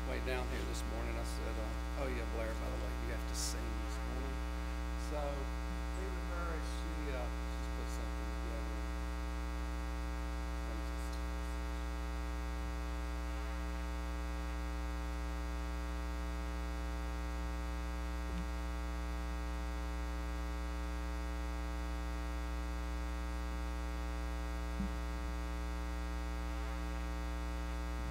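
Steady electrical mains hum with a buzz of many evenly spaced overtones. Faint, indistinct sounds fade out over the first several seconds, and two small clicks come later on.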